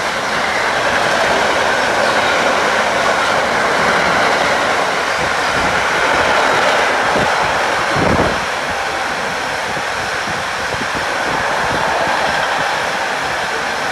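Empty double-deck car-carrier freight wagons rolling past: a steady noise of steel wheels on rail, with one brief low thump about eight seconds in.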